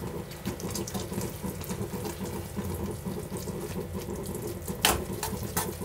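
A metal spoon stirring wet, sauce-coated instant noodles in a metal pan: a squelchy, wet churning with many small scrapes and clicks of the spoon against the pan, and a sharper clink about five seconds in.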